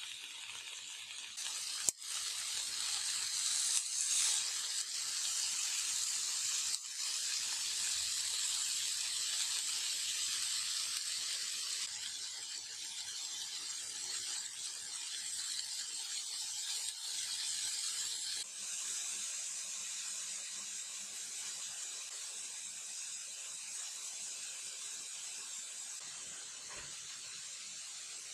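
Chicken kebab skewers, cherry tomatoes and green peppers sizzling in an oiled grill pan: a steady crackling hiss, with a sharp click about two seconds in.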